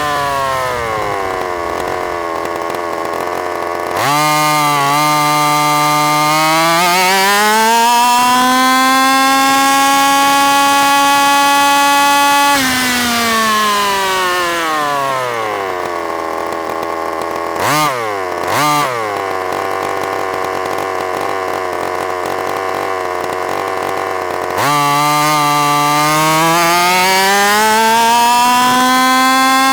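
Onboard sound of a Baja 5B RC car's 45cc two-stroke petrol engine. About four seconds in it opens to full throttle, the pitch climbing and then holding high, before dropping back to a low idle with two quick throttle blips. Near the end it winds up again.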